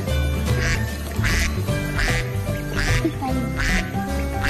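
Duck quacking repeatedly, about six short quacks evenly spaced, over background music with a steady beat.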